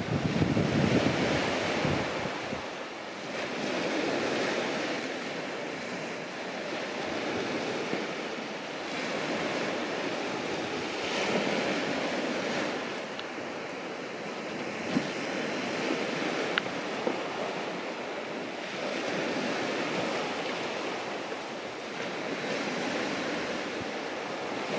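Sea waves breaking and washing up the beach, the rush swelling and fading every few seconds, with some wind on the microphone.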